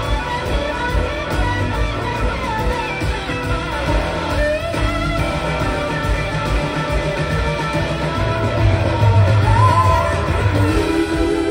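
Live blues-rock band playing, with guitar to the fore over bass and drums.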